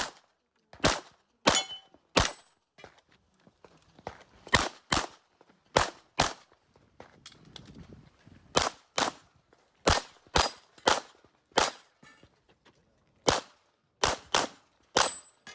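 Handgun shots fired in rapid pairs and short strings, about seventeen in all, with pauses of a second or so between groups. A few shots are followed by a brief high-pitched ring.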